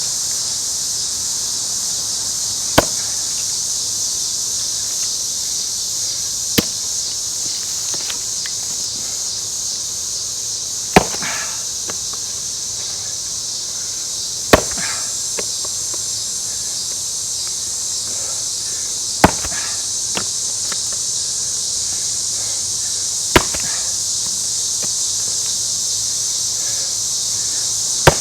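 Axe blows into a Scots pine log: seven sharp, separate strikes, roughly one every four seconds. Under them is a steady, high insect chorus.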